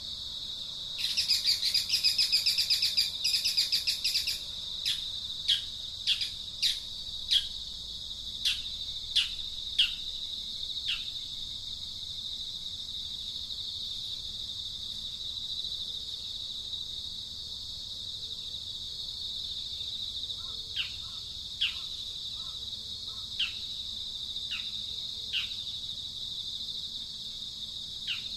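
Steady high-pitched insect drone with bird calls over it. About a second in comes a loud, rapid chattering burst lasting some three seconds. Then a series of short, downward-sweeping whistled notes follows, roughly one every half second or so, and a second series comes near the end.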